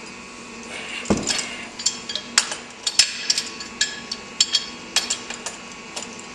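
Wrench and metal parts clinking and knocking on the rusted, torch-heated iron fitting of a frost-proof yard hydrant as it is unscrewed: a dull thump about a second in, then a run of sharp metal clinks.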